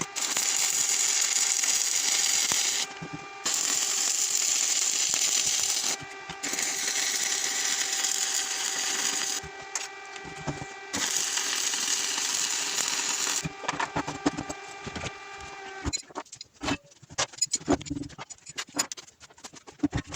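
Stick arc welding: four welding runs of a few seconds each, a steady crackling hiss with a faint whine, laying the final welds on the grinder mount. After the last run come scattered sharp clicks and knocks.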